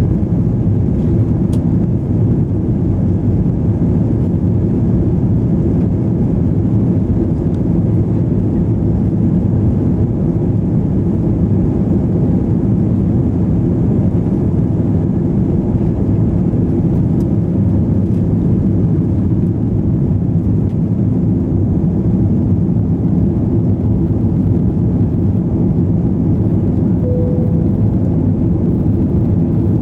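Steady, loud rumble of an Airbus A320 airliner's engines and airflow, heard from inside the passenger cabin.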